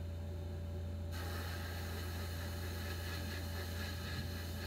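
Abrasive blasting in a sandblast cabinet: a steady hiss of air and grit from the blast nozzle against a pressed-steel toy truck part, over a constant low hum. The blast is off at first and starts about a second in.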